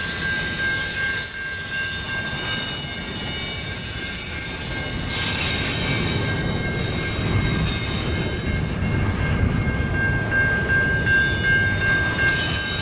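Double-stack intermodal container train rolling through the crossing: a steady low rumble of wheels on rail with a thin, steady high-pitched wheel squeal that is strongest at first and again from about eight seconds in.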